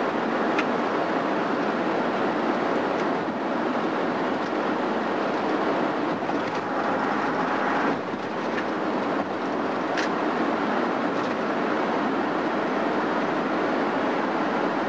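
Steady road noise of a vehicle cruising at highway speed, heard from inside the cabin: tyres on the pavement and the engine's drone, with a couple of faint clicks.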